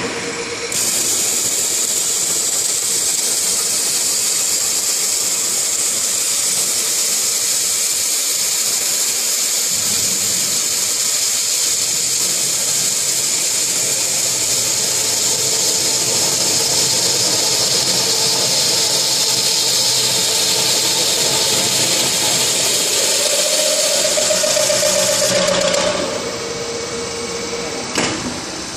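CNC beam drilling machine's spindle drilling through a steel H-beam, a long steady machine noise overlaid by the loud hiss of the mist coolant spray at the drill bit. It starts about a second in and stops shortly before the end, followed by a few sharp clicks.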